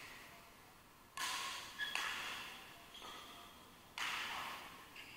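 Badminton racquets striking a shuttlecock during a rally: four sharp hits at uneven spacing, each ringing out in the echo of a large hall.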